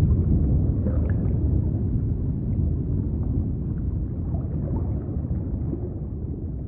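Deep, low underwater rumble, noisy and without a tune, with a few faint short higher sounds, slowly fading out.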